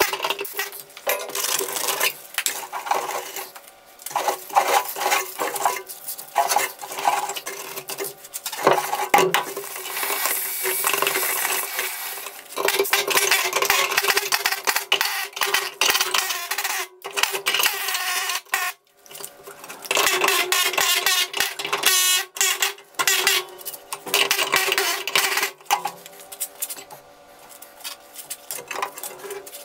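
Irregular scraping and metallic clinking as nest material, hay and rust scale are scraped and pulled out of a rusted-out steel rocker and B-pillar cavity, with a steady low hum underneath.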